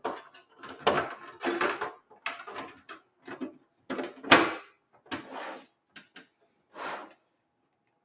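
Side panel of a desktop computer case being fitted and slid along the tower: a series of short scrapes and knocks, with one sharp clunk about four seconds in.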